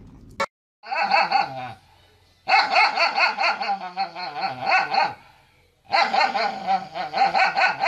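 A dog barking and howling in three bouts with short pauses between. Each bout is a fast run of wavering, pitched calls.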